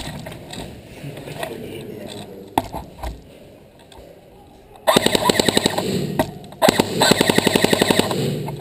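Airsoft gun firing on full auto in two long bursts of rapid, evenly spaced shots, the first starting about five seconds in and the second after a short pause.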